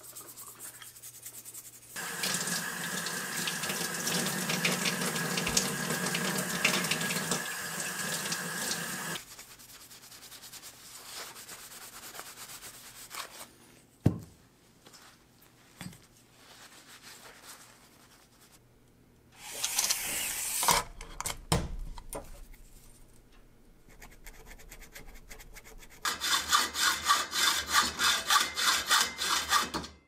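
Brass bells scrubbed by hand in a bucket of soapy water, with a long spell of steady running, splashing water. Then comes quieter rubbing of a polishing cloth on the bells. In the last few seconds a hacksaw cuts a workpiece clamped in a vise, with even back-and-forth strokes about three a second.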